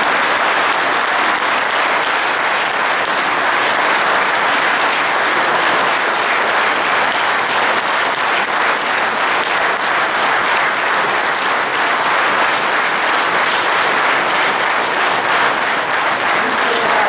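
Audience applauding steadily, a long round of clapping at the end of a speech.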